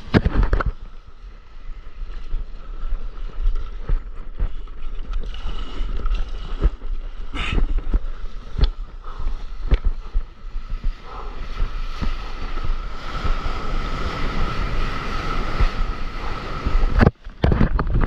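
Wind buffeting an action camera's microphone over seawater rushing and splashing around a stand-up paddleboard in the surf, with scattered knocks of the paddle and board. The sound drops out briefly about a second before the end.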